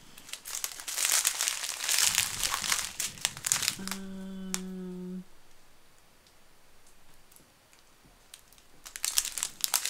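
Crinkling of a strip of small plastic bags of diamond-painting drills as it is handled, in a run over the first few seconds and again near the end. About four seconds in, a steady low hum lasts about a second and a half.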